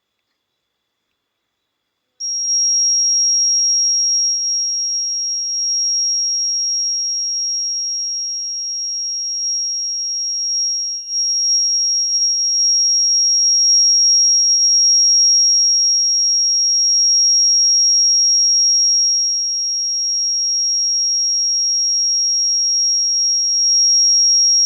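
A homemade fire alarm's buzzer sounds one continuous, steady, high-pitched tone that starts suddenly about two seconds in.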